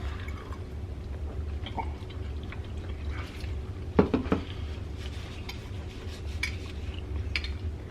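Cutlery clinking and scraping on plates as several people eat, with one louder knock about four seconds in.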